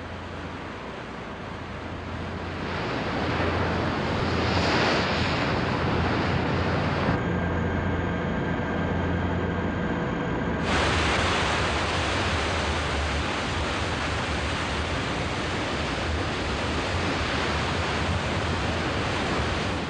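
Rushing water and wind along the hull of a destroyer under way, swelling a couple of seconds in. About seven seconds in it gives way to a few seconds of steady machinery hum with several steady whining tones from the ship's engine room. Then a loud rush of sea and wind cuts back in and holds.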